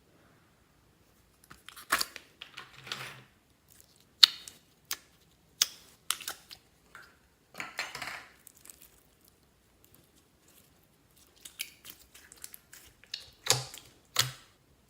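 Slime being handled: a run of sharp clicking pops and short crackling noises, in irregular bursts with a quiet pause about halfway through.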